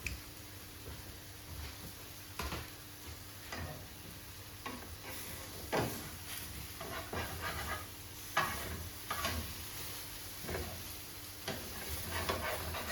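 Spatula scraping and knocking around pancakes in a frying pan, a dozen or so irregular short strokes, over a faint sizzle on low heat. The scraping frees fruit that is starting to burn onto the pan.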